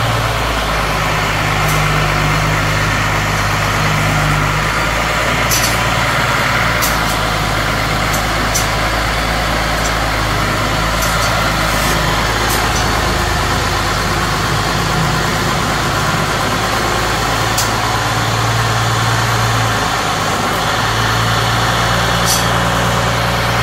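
John Deere 3350 tractor's diesel engine running steadily, its pitch shifting slightly a couple of times.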